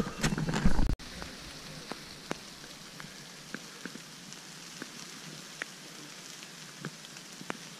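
Light rain dripping on leaves and rock in a wet forest: a steady soft hiss with scattered single drops ticking. For the first second a loud rumble on the microphone runs, then stops abruptly at a cut.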